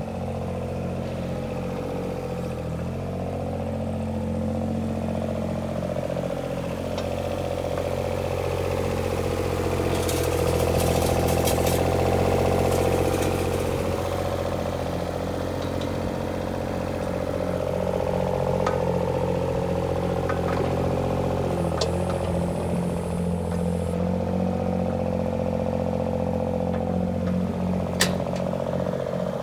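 IHI mini excavator's diesel engine running steadily while its hydraulics work, with a whine that rises and falls under load. A burst of metallic clatter comes about a third of the way through, and a single sharp click near the end.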